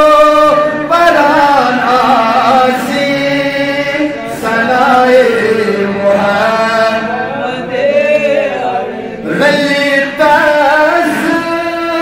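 A man chanting an Islamic devotional recitation solo, drawing out long, wavering notes in phrases with short breaks between them.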